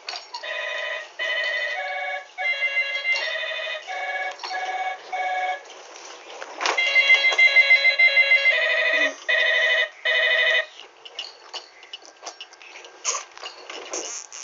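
Electronic tune from a baby walker's toy play panel: a simple melody of short beeping notes with a fast warbling trill in the middle. The tune stops about ten seconds in, and light knocking and rattling of the plastic toy follows.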